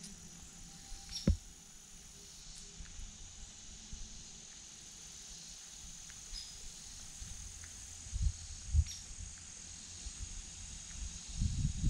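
Insects trilling steadily on one even high pitch, with scattered faint clicks and a few low thuds about eight seconds in and near the end.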